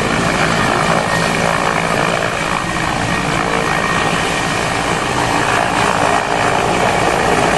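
Mi-17-type twin-turbine helicopter running loud and steady as it climbs away at low height, the rotor noise carrying a thin steady high whine.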